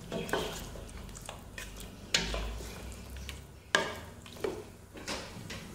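Spatula stirring chicken and curd in a stainless steel pot, scraping and knocking against the pot several times, the strongest knocks about two and four seconds in, over a low sizzle as the mixture fries.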